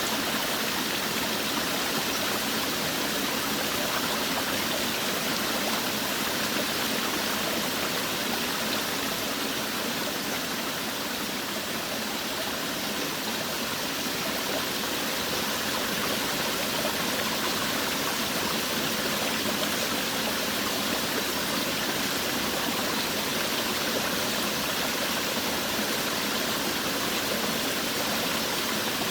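Forest waterfall: water falling and rushing in an even, steady hiss, with no breaks or changes.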